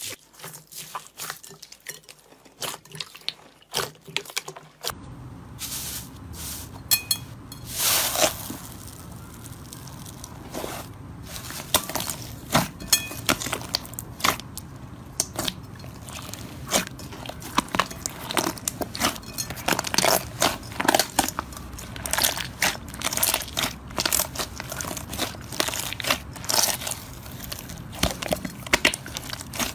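Hand slime play: crackling clicks as a hand presses into bead-filled gold slime. About five seconds in, this gives way to denser squishing, popping and crackling as two hands squeeze and stretch glossy pink slime.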